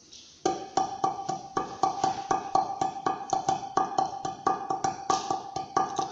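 A drum beaten by hand in a steady rhythm, about four strokes a second, each stroke sharp, with a steady ringing tone beneath the beat.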